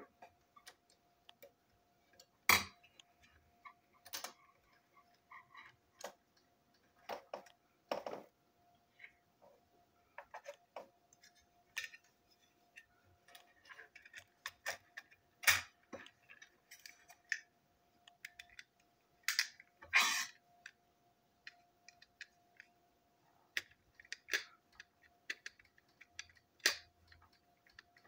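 Irregular small clicks and taps of plastic model railway coach parts being handled and taken apart: the chassis with its wheelsets, tiny screws and a small screwdriver knocking against one another and the table.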